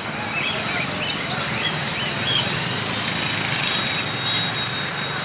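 A vehicle engine running steadily, a low rumble under a continuous outdoor din.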